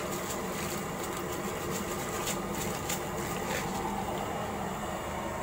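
Coarse salt tipped into a large aluminium pot of water, with a few faint ticks, over a steady hum that runs throughout.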